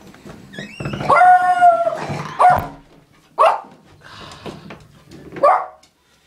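Small dog giving one long drawn-out call about a second in, followed by a few short sharp barks.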